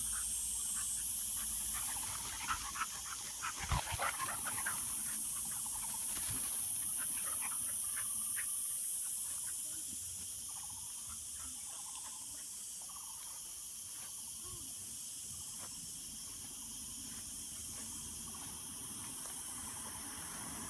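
Two young dogs play-fighting, with a cluster of short, sharp dog sounds about two to five seconds in and a few faint whines later. A steady high hiss runs underneath.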